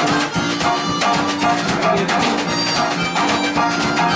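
Live blues jam with no singing: a small drum kit with cymbals keeps a steady beat under held melodic notes.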